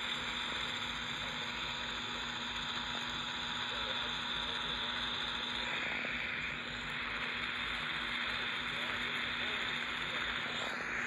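Steady radio static from a broadcast receiver: an even hiss with a faint low hum underneath.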